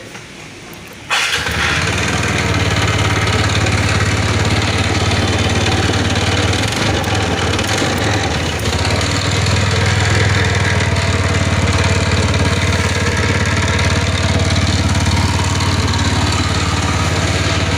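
TVS Ntorq 125 BS6 scooter's single-cylinder engine starting about a second in and then idling steadily with a harsh tik-tik ticking rattle, which the mechanic puts down to a loose one-way starter clutch nut, a common Ntorq fault.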